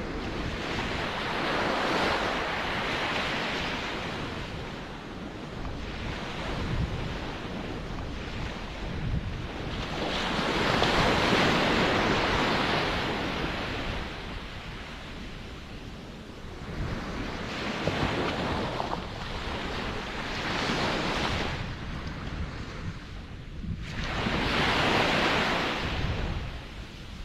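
Ocean surf: waves washing in and drawing back in slow swells, about four surges, each building for a few seconds and fading, over a constant low rumble.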